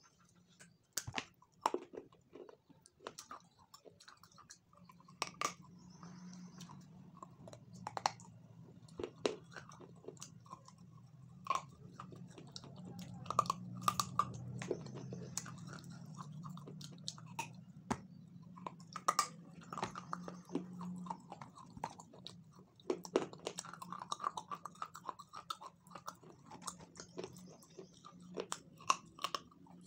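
A person chewing and biting a soft chocolate-coated treat close to the microphone, with many sharp, irregular wet mouth clicks.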